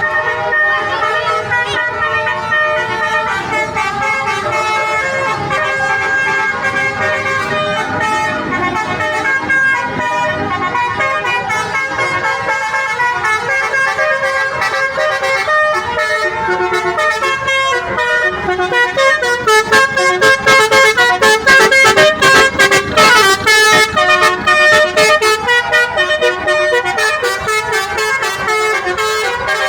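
Multi-tone musical bus horn (a "telolet" horn) sounding a tune of shifting horn notes. From about 19 to 24 seconds it gets louder and breaks into quick repeated blasts.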